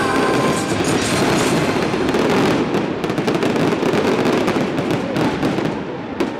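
Fireworks display: a dense barrage of bangs and crackling that thins out into separate cracks and grows quieter toward the end.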